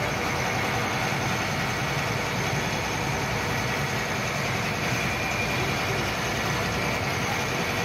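Engine of a harbour motor launch running steadily, heard from on board the boat.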